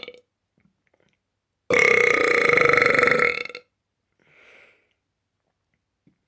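Deliberate burps: the end of one right at the start, then a long, loud, rasping burp of about two seconds at a steady pitch, followed by a faint hiss.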